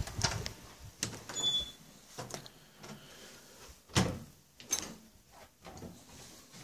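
An interior door being handled, with scattered knocks and clicks, the loudest about four seconds in, and a short high squeak about a second and a half in.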